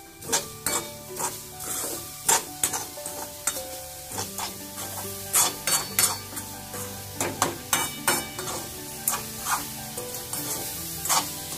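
Steel spoon scraping and knocking against a metal kadai, stirring grated coconut and sugar as they roast, in many short irregular strokes.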